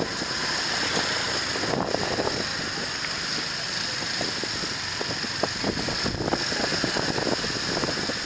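Wind rushing and buffeting the microphone of a moving scooter in street traffic, a steady rush with crackling gusts over the drone of vehicles.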